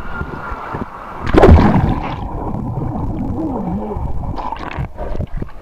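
Water sloshing and splashing, with one loud splash about a second and a half in, then voices.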